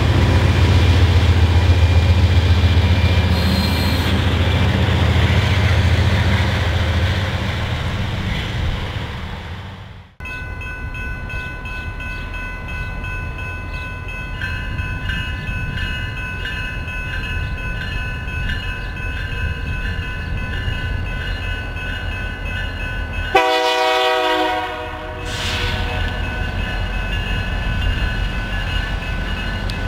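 Freight train passing with a BNSF C44-9W locomotive in the consist, a heavy low rumble that fades out about ten seconds in. Then a second freight, led by a BNSF GP25, approaches with a steady rumble while a grade-crossing bell rings. About three-quarters of the way through, the locomotive's horn sounds one blast of about two seconds.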